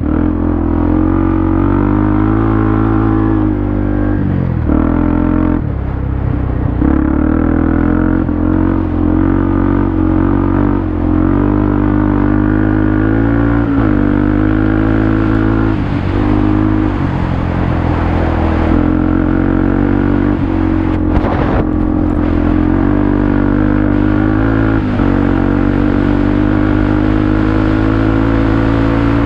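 Off-road vehicle's engine running hard around a dirt track, its pitch dropping and climbing every few seconds with throttle changes and shifts.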